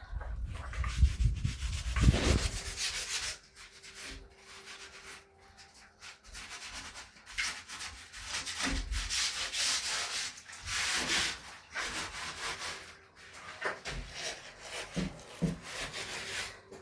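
Cloth rubbing and scrubbing against a surface in repeated, uneven strokes, with a louder low rumble in the first couple of seconds.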